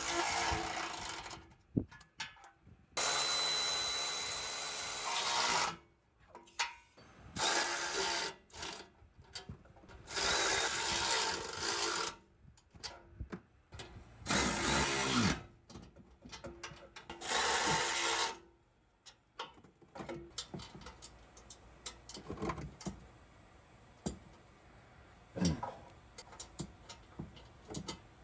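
A power tool with a socket tightening bumper mounting bolts, running in short spurts of one to three seconds, about six times with pauses between. After that come fainter clicks and knocks of handling tools and hardware.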